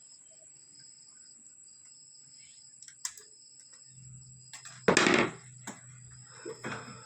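A small metal tool prying at a volume potentiometer's casing: a sharp click about three seconds in, then a loud, brief scrape about five seconds in, followed by a few smaller clicks.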